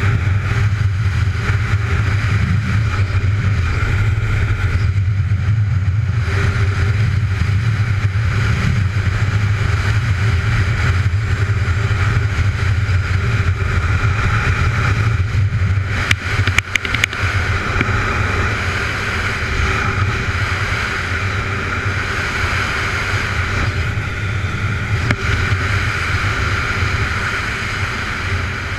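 ATV engine running steadily under way on a dirt trail, heard from the rider's helmet camera with a steady rush of wind and trail noise. A brief cluster of knocks about sixteen seconds in.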